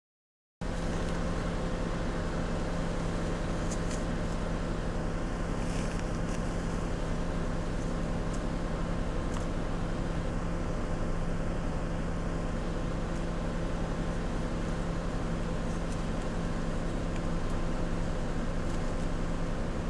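A vehicle engine idling with a steady, unchanging hum, starting about half a second in, with a few faint ticks now and then.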